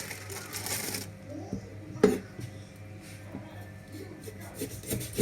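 Knife work on raw chicken wings on a cutting board: a scrape in the first second, a sharp knock of the blade on the board about two seconds in, and light clicks and taps near the end.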